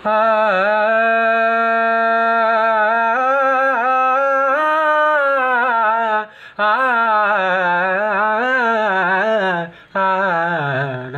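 A man singing a wordless Hindustani-style alaap on open vowels, solo with no accompaniment: long held notes with wavering ornaments. Two quick breaks for breath interrupt it, about two-thirds of the way through and near the end.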